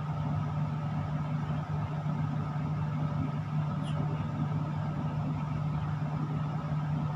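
Steady low machine hum inside a tower crane operator's cab, unchanging throughout.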